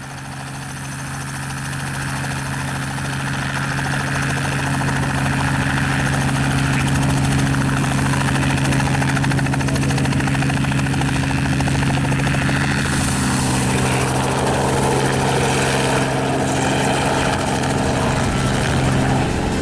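Robinson R44 helicopter running with its main rotor turning: a steady engine-and-rotor hum that grows louder over the first few seconds and then holds. About two-thirds of the way through the sound fills out as the helicopter makes a fast takeoff.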